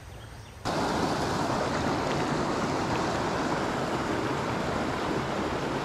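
Creek water rushing over a shallow, rocky riffle: a steady, even rush that starts abruptly about half a second in.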